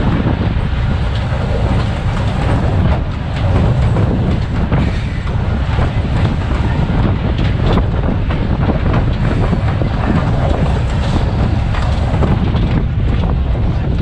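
GE 80-ton diesel-electric switcher under way, its diesel engine running steadily beneath irregular clicks and clatter of the wheels over the rail joints.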